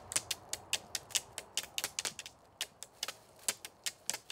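Rapid, uneven clicking, about six sharp clicks a second.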